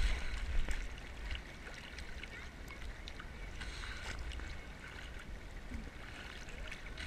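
Sea water sloshing and lapping against a camera held at the water's surface, with a low rumble of water and wind buffeting the microphone. A louder splash right at the start dies away within the first second.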